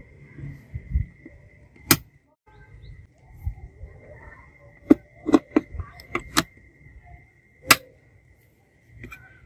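DOHO DB65 miniature circuit breakers snapping onto a metal DIN rail in a plastic distribution box: several sharp plastic clicks spread over the stretch, the loudest about two seconds in and near the end, with a quick cluster in between and light handling rustle.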